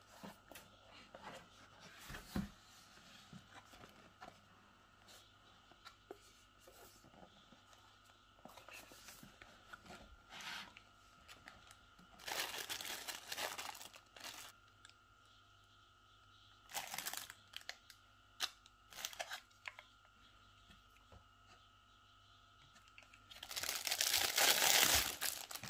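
Handling of boxed packaging: a cardboard box is opened and clear plastic bags crinkle in short, scattered bursts. The longest and loudest crinkle comes near the end, as the plastic-wrapped clipper is lifted and turned in the hands.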